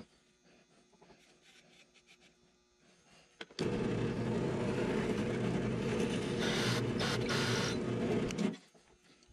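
Drill press starting abruptly about three and a half seconds in and running steadily for about five seconds with a spinning cylindrical attachment against a plywood disc, then stopping. Before it starts there are only light knocks from handling the wood.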